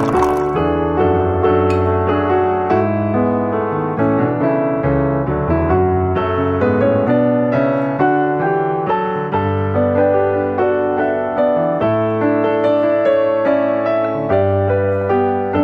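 Background piano music, single notes and chords at an even, gentle pace.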